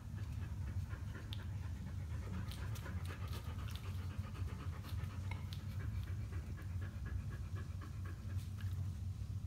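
Dogs panting steadily, over a steady low hum.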